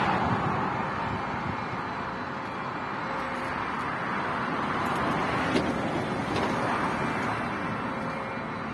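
Steady road-traffic noise, an even hiss and rumble with no distinct strikes.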